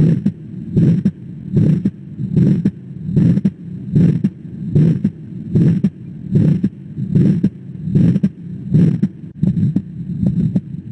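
Heart sounds recorded through a stethoscope for auscultation teaching: a regular heartbeat at about 75 beats a minute, each beat a low thump.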